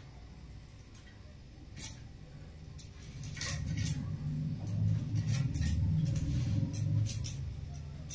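Small fish scraped and cut against the blade of a bonti, an upright Bengali cutting blade: irregular sharp scrapes and clicks, busiest from about three seconds in. A low hum swells underneath at the same time.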